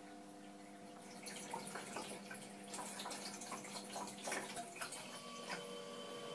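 Majestic IM33 countertop ice maker running with a steady hum. About a second in, water starts splashing and trickling with small irregular clicks, typical of its pump lifting water from the reservoir into the freezing tray. Near the end the running hum changes to a different pitch.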